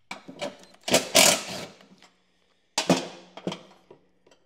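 Metal parts clattering and knocking against a metal mower deck as a belt guide and its bolt are worked loose and lifted out by hand: a few sharp knocks, with the loudest clatter about a second in.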